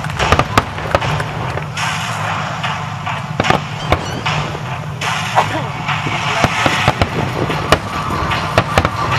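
Aerial fireworks shells bursting: an irregular string of sharp bangs and crackles, at times several a second, over a steady background of voices.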